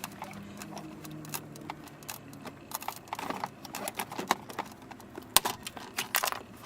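Hand rivet gun being squeezed over and over to set a pop rivet in an aluminum console hinge: a run of irregular sharp clicks and clacks, with one louder snap about five seconds in.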